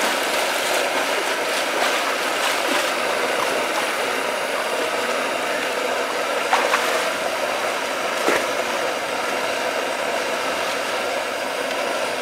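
Steady rush of water pouring and splashing into a well's pool, with a couple of brief sharp splashes or clicks about six and a half and eight seconds in.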